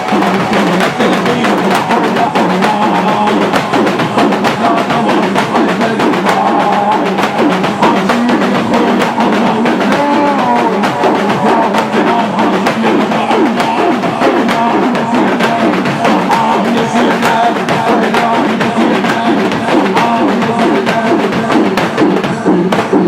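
Husayni mourning chant (latmiya): voices chanting verses over a steady, regular drum beat.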